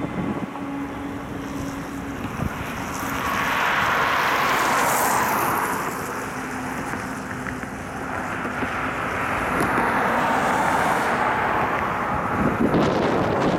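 Union Pacific diesel locomotive hauling a loaded coal train as it draws near, its engine a steady low hum under the rumble of the train. Wind buffets the microphone in strong gusts, about three seconds in and again later.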